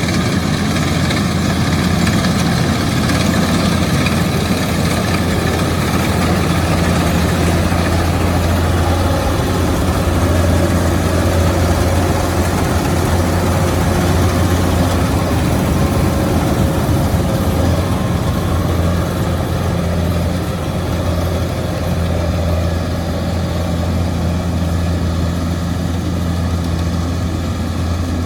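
Kubota DC-105X combine harvester's diesel engine and machinery running steadily, a continuous loud, even drone.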